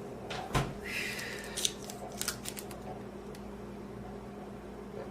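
A few short clicks and knocks, the loudest about half a second in, over a steady low hum.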